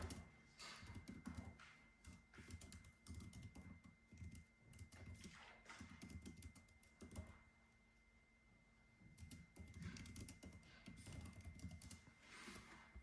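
Typing on a computer keyboard: quiet runs of keystrokes in uneven bursts, with a short lull a little past the middle.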